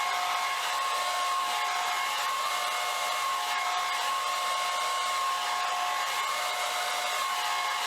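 Hair dryer running steadily, a continuous rushing hiss of air with a steady whine, blowing acrylic paint across a board.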